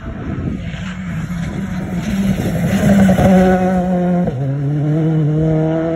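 Rally car engine revving hard as the car comes past on a gravel stage, louder up to about three seconds in. A little after four seconds the pitch drops suddenly, then climbs again as it pulls away.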